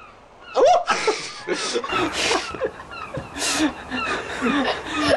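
People laughing: breathy bursts of laughter and chuckles starting about half a second in.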